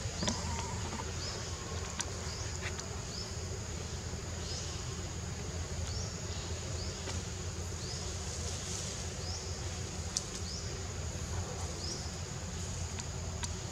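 Steady high-pitched insect buzz from the forest, with short chirps repeating roughly once a second over a steady low rumble and a few faint clicks.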